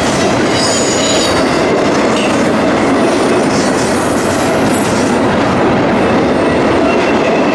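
Double-stack intermodal freight train passing close by at speed: a steady loud rumble and clatter of the well cars' wheels on the rails, with a thin wheel squeal coming and going.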